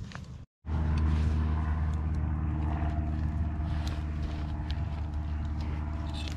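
A steady low mechanical hum, like an engine running, starts abruptly after a split-second gap about half a second in. Light clicks and taps sound over it.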